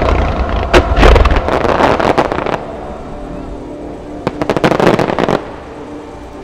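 Aerial fireworks shells bursting in a dense run of bangs and crackles for the first two and a half seconds. A second short run of sharp cracks comes about four seconds in and stops abruptly about a second later.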